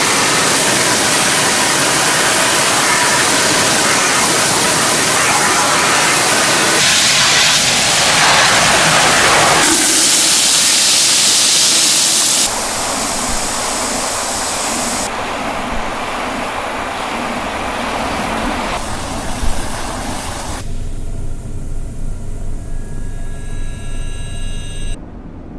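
High-pressure water jet spraying the parts of a disassembled washing machine to wash off scale and grime: a steady rushing hiss that jumps in strength and tone several times, and becomes quieter with a few faint clicks for the last few seconds.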